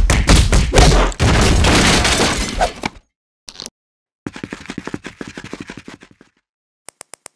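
Added cartoon fight sound effects: a hard hit, then about three seconds of loud crashing and breaking noise. After that comes a fast rattle of small ticks, and four quick clicks near the end.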